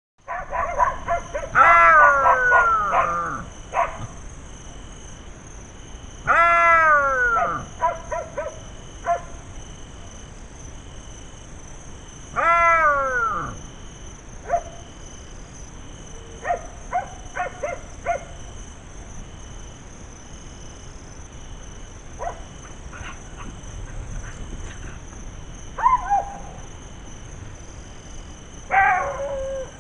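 Jackals calling: three long wailing cries that fall in pitch, about six seconds apart, with short yips and barks between them and a few more yelps near the end.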